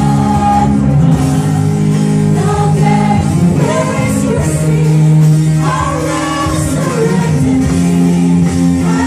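Live worship band playing: a male lead singer and backing singers sing through microphones over electric and acoustic guitars and drums, holding long sustained notes.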